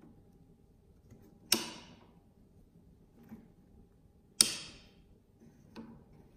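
Sharp metal-on-metal clanks from a tool and cutter grinder's parts being handled: two loud clanks about three seconds apart, each ringing briefly, with two lighter clicks between and after them.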